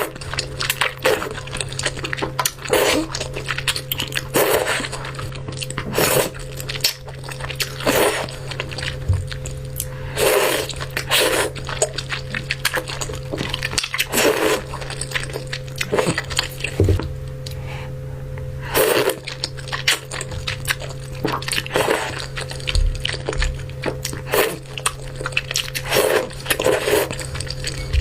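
Close-miked eating sounds of thick noodles being eaten: repeated bites and chewing mouth noises every second or so, over a steady low hum.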